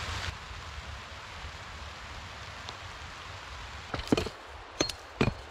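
Steady outdoor hiss, then a few sharp knocks near the end as a hatchet strikes a snow-covered fallen log, cutting firewood.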